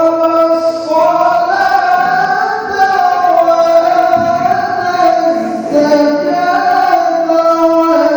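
A male qari reciting the Qur'an in the melodic tilawah style, his high voice holding long ornamented notes that step and glide between pitches in one unbroken phrase.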